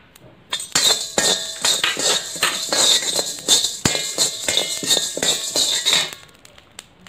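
Steel slotted spoon stirring and scraping roasting coriander seed, pepper, cumin and dal around an iron kadai: rapid rattling strokes, about three a second, with metallic clinks. They start about half a second in and stop about six seconds in.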